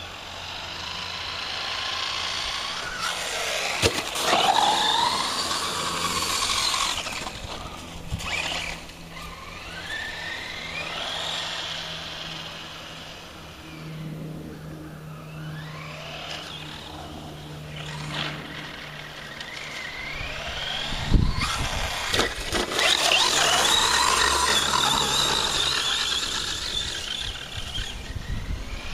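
Radio-controlled Traxxas Stampede 4x4 on a 3S LiPo, its Turnigy 3190kv brushless motor whining up and down in pitch in repeated throttle bursts, with a few sharp knocks.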